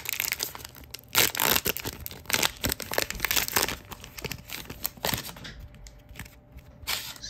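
Foil wrapper of a Topps Allen & Ginter trading-card pack crinkling and tearing as it is ripped open and the cards are pulled out. The crinkling is dense for about five seconds, then thins to a few scattered crackles.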